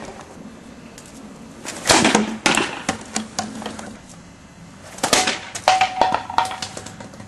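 A fake bullwhip being swung and snapped, giving two clusters of sharp cracks, about two seconds in and again about five seconds in.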